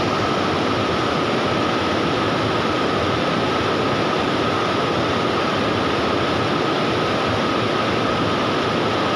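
Water pouring over a stepped concrete river weir: a steady, even rush.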